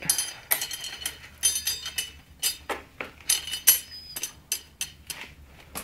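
Irregular metallic clinks and knocks from metal parts being handled: a dozen or so sharp hits spread unevenly, each with a short ringing tail.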